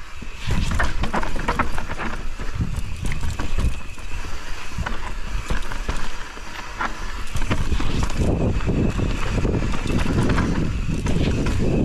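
Mountain bike descending a rocky trail: tyres rumbling over rock slabs and dirt, with scattered clicks and rattles from the bike over bumps and wind on the microphone. The rumble gets louder about two-thirds of the way through.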